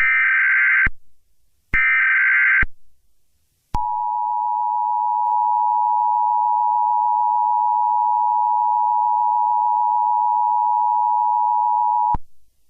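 Emergency Alert System SAME header: two roughly one-second bursts of screechy digital data tones, the last of the three header repeats. About four seconds in comes the EAS two-tone attention signal, a steady, harsh dual tone held about eight seconds before it cuts off. It signals that an emergency alert voice message is about to follow.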